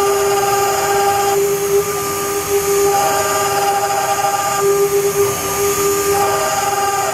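CNC router spindle running with a steady whine while engraving copper, its upper overtones fading in and out every second or two over a steady hiss.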